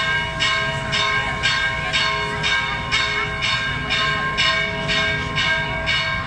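Church bell rung repeatedly at about two strikes a second, its tone ringing on between strokes.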